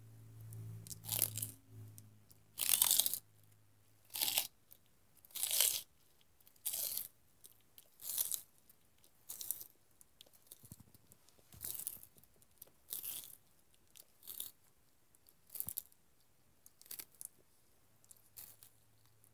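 Tortoise biting into and tearing at fresh celery and broccoli: a series of short, loud, wet crunches, about one every second.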